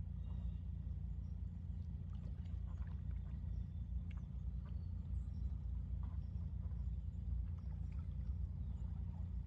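A steady low rumble, with faint small splashes and water sounds from ducks dabbling and feeding at the surface of a pond.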